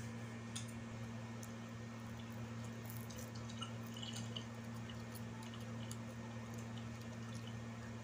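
Faint wet clicks and smacks of a child chewing and pulling apart a cooked quail with her fingers, over a steady low hum.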